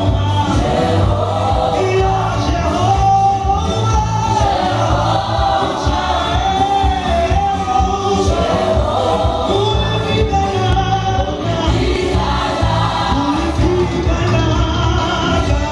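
Loud gospel music: a choir singing over a steady bass.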